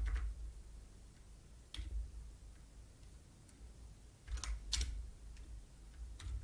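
Sparse typing on a computer keyboard: a lone keystroke about two seconds in, then a quick run of three or four keystrokes around four and a half seconds, with quiet in between.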